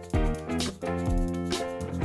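Instrumental background music with a steady beat: held keyboard-like chords over a deep drum about twice a second.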